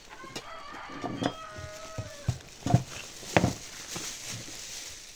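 A drawn-out animal call lasting about two seconds, followed by a few sharp knocks.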